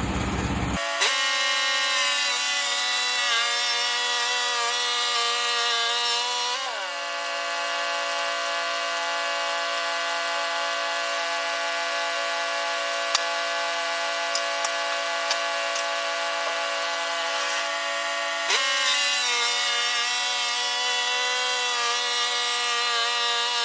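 Sawmill running and sawing a 1x6 board off a white oak log: a steady whine that drops slightly in pitch about six and a half seconds in and rises again about three quarters of the way through.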